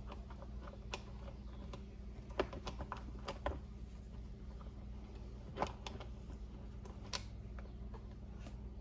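Scattered light metallic clicks and taps of a pole saw chain being fitted by hand onto its guide bar, with a steady low hum underneath.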